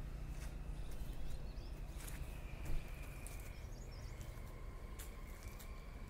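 Outdoor ambience: a steady low rumble on the microphone, a thin steady high tone, scattered faint clicks, and a few faint bird chirps.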